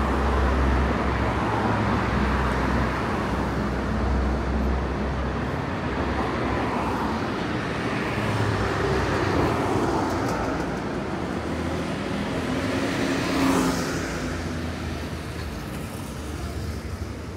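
City street traffic: cars and buses running past with a low engine rumble, strongest in the first few seconds. A short, sharp louder sound stands out about thirteen seconds in, and the traffic fades slightly near the end.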